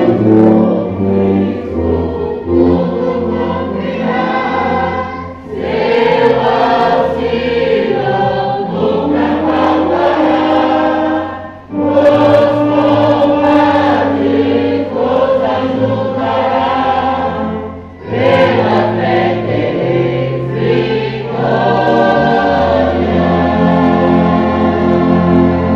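A hymn sung by many voices over a church orchestra with tubas carrying a sustained bass line. The hymn moves in held phrases, with a brief break about every six seconds.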